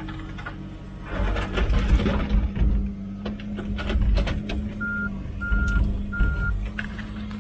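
Komatsu PC16 mini excavator's diesel engine running and working under load, with heavy low surges and crackling knocks. Near the middle it gives three short, even travel-alarm beeps as it moves.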